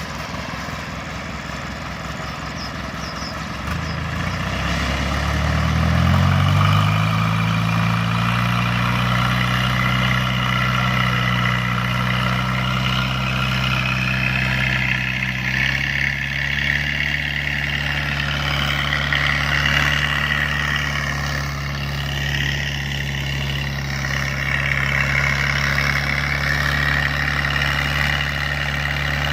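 Engine of a mud-dredging boat running; about four seconds in it speeds up, its pitch rising over a few seconds, then it holds a steady speed, dropping slightly in pitch about halfway through.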